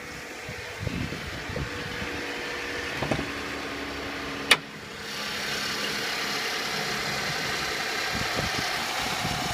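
Toyota Avalon engine idling steadily, with a sharp click about four and a half seconds in as the hood latch releases. After the click the idling engine sounds louder as the hood comes up.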